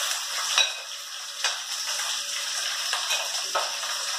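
Chopped onion and green bell pepper sizzling in hot oil in a wok, with a spoon knocking and scraping against the pan and plate a few times.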